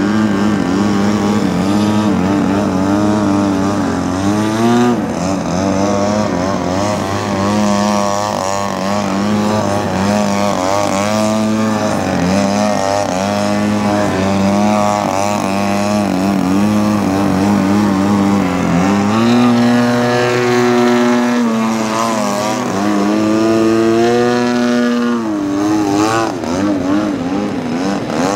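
The engine and propeller of a large-scale Slick aerobatic RC plane, running continuously in a hover. The pitch steps up and down with throttle changes, rising noticeably about two-thirds of the way through and dropping back near the end.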